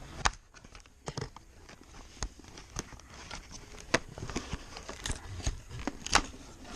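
Toy blaster packaging being handled and pulled open by hand: irregular crackles and clicks of box and packing material.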